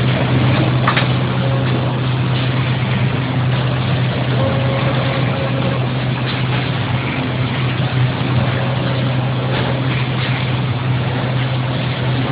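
Case making machine running: a steady mechanical hum with a constant low drone and a few faint clicks.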